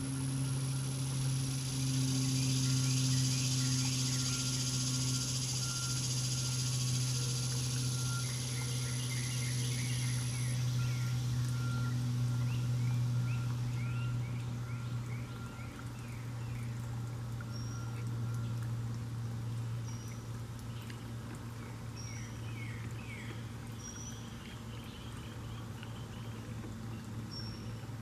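Woodland ambience: a steady low hum under many short chirping animal calls, with a high hiss that fades about halfway. In the second half a short high call repeats about every two seconds.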